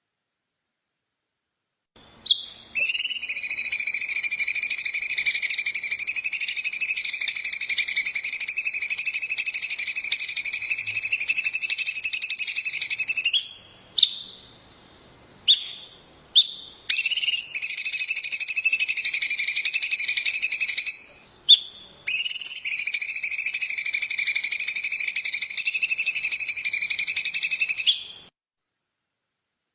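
A songbird's long, very rapid trill on a steady high pitch, given three times: about ten seconds, then about four, then about six, with a few short sharp notes between the trills.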